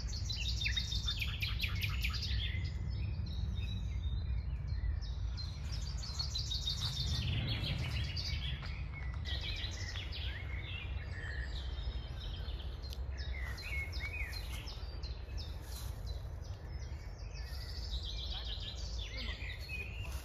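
Several songbirds singing, with repeated phrases of rapid trilling notes coming one after another, over a steady low rumble.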